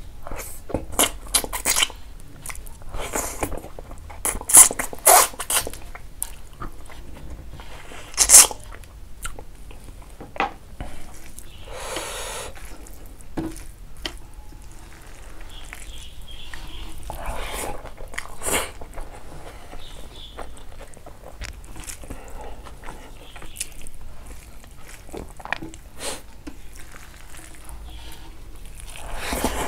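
Close-up eating sounds of pork leg curry and rice eaten by hand: chewing, biting and wet mouth smacks, with a few sharp louder clicks, and fingers mixing rice and curry on a metal plate.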